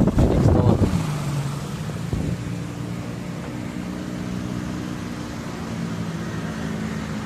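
Motor scooter engine running steadily at idle, after a louder, rougher stretch in the first second; a single brief knock sounds about two seconds in.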